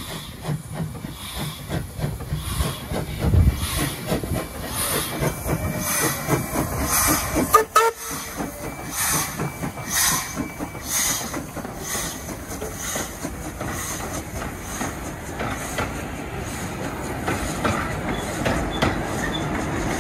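Steam locomotive NM25 working a train past at close range, its exhaust beating in a steady rhythm with hissing steam. The beats give way near the end to the steady rumble and clatter of the carriages rolling by.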